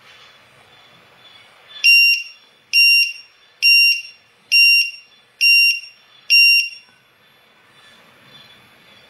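Matek lost-model finder's piezo buzzers sounding six loud, shrill beeps, a little under a second apart. This is its low-voltage alarm, set off as the supply falls below the 10.2 V threshold (3.4 V per cell on three cells).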